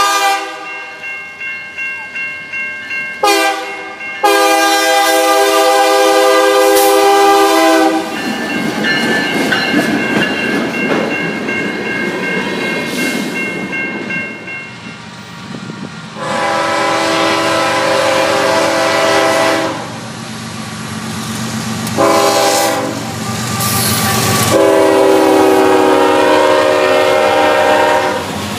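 Freight locomotive air horns sounding a series of long blasts and one shorter blast, over grade-crossing bells ringing and the rumble and clatter of freight cars rolling past.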